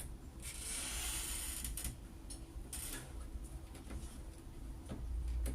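Deadbolt lock parts being handled and pushed into the door: a stretch of metal scraping about half a second in, then scattered light clicks.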